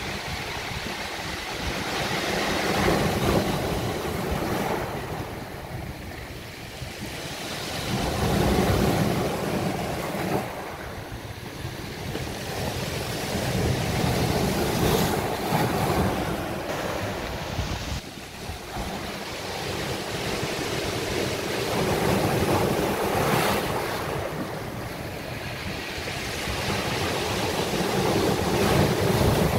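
Mediterranean surf breaking on a beach and washing up the shore, swelling and ebbing every several seconds.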